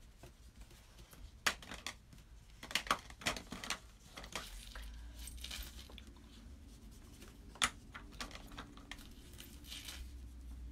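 Coloured pencils working on paper at a tabletop: faint scratchy shading with scattered light clicks and taps of pencils against the table, a cluster of them about three seconds in and a sharp one near eight seconds.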